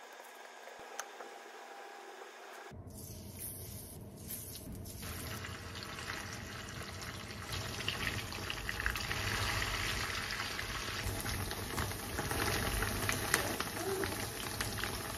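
Powder-dusted chicken pieces shallow-frying in oil in a frying pan: quiet at first, then a steady sizzle starts about three seconds in and grows slowly louder.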